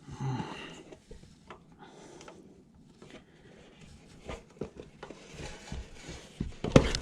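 Tire spoons and hands working a stiff e-bike tire off its rim: scattered clicks and knocks of metal on the rim with rubbing of the rubber, and a sharper knock near the end.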